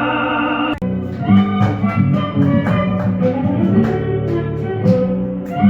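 Recorded Argentine folk music: a held ending of the previous song breaks off abruptly about a second in, and an instrumental passage of rhythmic strummed guitar with drum beats starts up, the introduction before the next verse is sung.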